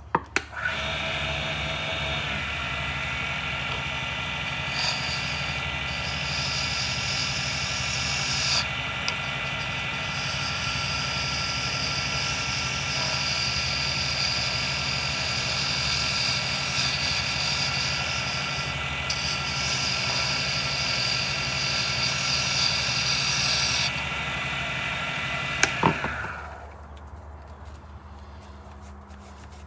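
Lathe switched on with a click and running steadily with a motor whine, spinning a resin pen blank. A hiss from the work on the spinning blank rises over it from about five seconds in and drops out near the end. The lathe is then switched off and spins down.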